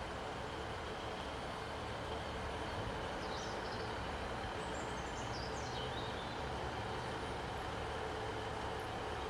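Class 150 diesel multiple unit idling in the station, a steady diesel rumble and hum with no change in engine speed. A few short high chirps sound around the middle.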